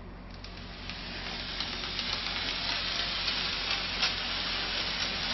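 Foam gun dispensing a bead of foam along the edge of a rigid foam board: a steady hiss dotted with small crackles, growing over the first second or two and then holding.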